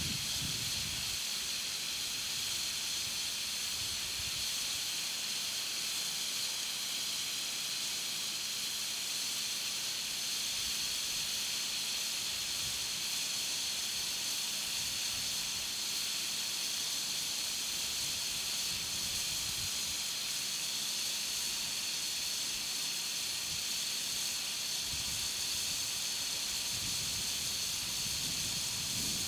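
Steady hiss of air escaping from a large 20.8R38 tractor-tyre inner tube, which shrinks slightly as it slowly deflates.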